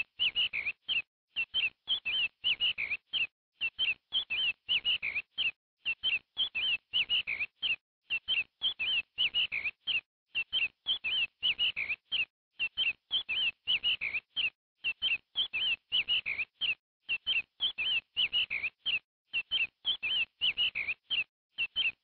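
Young chickens peeping: short, high chirps, several a second, in a steady run.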